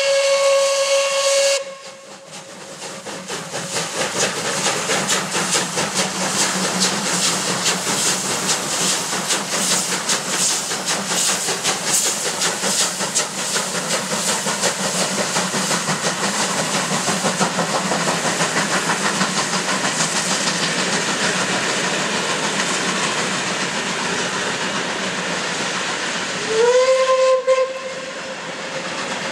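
Steam locomotive whistle blowing a steady note that cuts off about two seconds in. Then two steam locomotives double-heading a passenger train work hard as they pull away, with fast exhaust beats and hissing steam that build over the first few seconds. A second whistle blast, sliding up to its note, sounds for about a second near the end.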